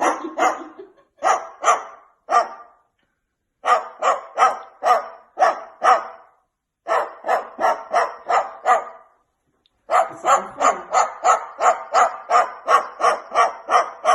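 A dog barking repeatedly in quick bouts of short, sharp barks, about three a second, with brief pauses between bouts.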